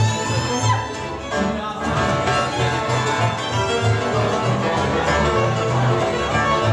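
A Slovak cimbalom band plays a lively folk tune live: two fiddles carry the melody over the hammered cimbalom, and the double bass marks a steady, even beat.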